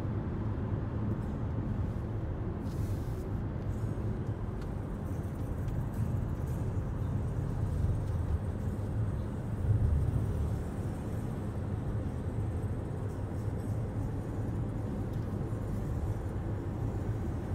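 Car driving on a freeway, heard from inside the cabin: a steady low rumble of road and engine noise, swelling briefly about ten seconds in.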